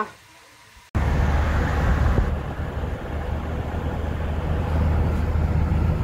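Car interior at motorway speed: steady low engine and road rumble with tyre noise. It starts abruptly about a second in, after a moment of faint room tone.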